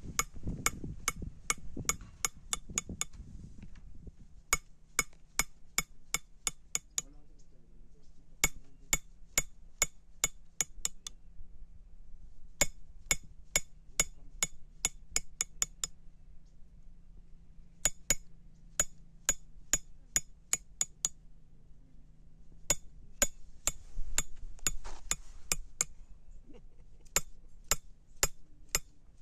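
Blacksmith's hammer striking hot iron on an anvil with a ringing metallic clang, in quick runs of about three to four blows a second broken by short pauses.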